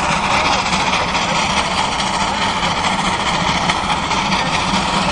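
Steam locomotive hauling a passenger train as it approaches, with smoke at the stack. A steady, continuous rumble and hiss.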